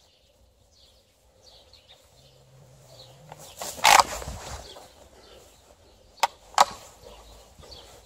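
Rustling of hedge leaves and branches as a dog pushes into the bush, with one loud burst of rustling about four seconds in. Two sharp clicks follow close together about two seconds later, over faint birds chirping.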